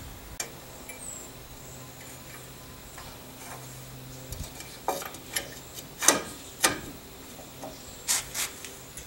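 Metal tools and drum-brake parts clinking and clanking as they are handled. About six sharp, ringing metal knocks come over the last four seconds, the loudest about six seconds in.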